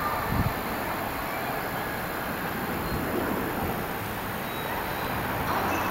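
EF65 2000-series electric locomotive rolling slowly through the depot yard, heard as a steady, even noise, with a low thump just under half a second in.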